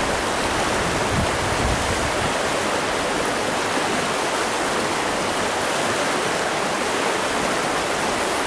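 Fast water of a trout stream rushing over a rocky riffle: a steady, even rush.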